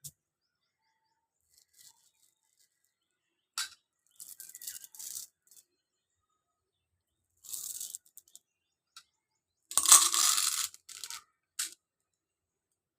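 Candy and its plastic packaging being handled, in short bursts of crinkling and clattering separated by silence. The longest and loudest burst comes about ten seconds in.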